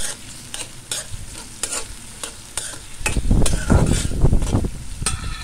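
Prawns sizzling in hot oil in a metal karahi while a metal spatula scrapes and stirs them in short strokes. The stirring gets louder and rougher about three seconds in.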